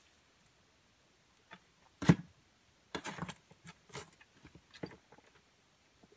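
Shovel working soil into a wheelbarrow: a sharp knock about two seconds in, then a run of scrapes and thuds, with a few smaller knocks after.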